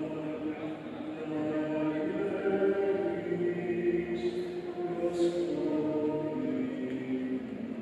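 Choir singing slow, long-held notes that change pitch about once a second.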